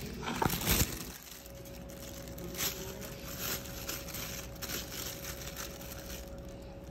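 Thin plastic bags of moi moi purée crinkling and crackling as a hand works a boiled egg into them. There is a louder burst of crackling in the first second, then scattered crackles. A low steady hum sits underneath.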